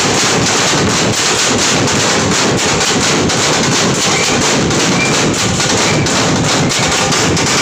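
An ensemble of large steel-shelled drums beaten with sticks, playing a fast, dense, continuous rhythm at a loud, even level.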